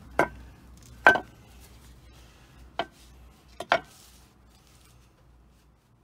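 A removed Toyota FJ Cruiser lower control arm knocking against concrete as it is handled: four sharp knocks spread over about four seconds, the second the loudest and the last a quick double.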